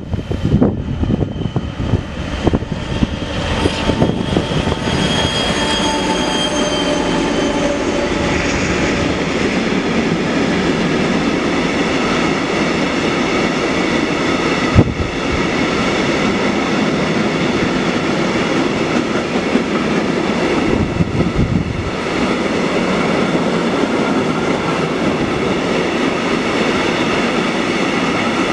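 Class 232 diesel locomotive running past close by with a heavy engine rumble and a pitched whine that falls slightly as it passes. It is followed by a long train of empty tank wagons rolling past with steady wheel and rail noise and one sharp knock about fifteen seconds in.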